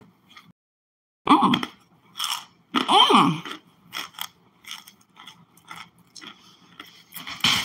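Biting into and chewing a hard, solid block of packed cornstarch: crisp crunches, the loudest in the first three seconds, then a run of quieter, evenly spaced chewing crunches. Twice, about a second in and again about three seconds in, the chewing comes with a short pleased hum.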